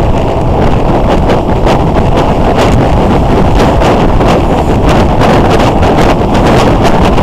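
Heavy wind buffeting on a motorcycle-mounted camera's microphone at road speed, loud and continuous with frequent gusty crackles. The motorcycle's running noise sits underneath it.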